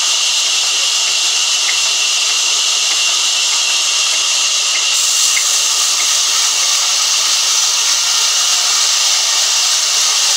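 Sawmill band saw ripping lengthwise through a large log: a loud, steady hiss that does not let up.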